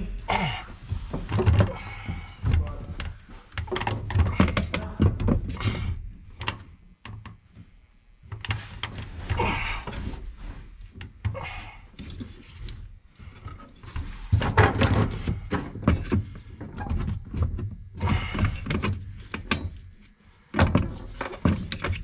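Irregular metallic knocks, clunks and thuds from tools and a clutch pedal assembly being handled and worked into place under a pickup's dashboard, with a quieter spell partway through.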